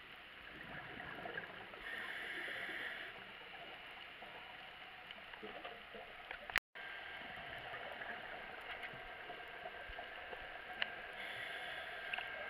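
Underwater sound of a scuba diver's regulator: two rushes of exhaled bubbles, about two seconds in and again near the end, over a steady muffled hiss of water. A sharp click and a moment of silence in the middle.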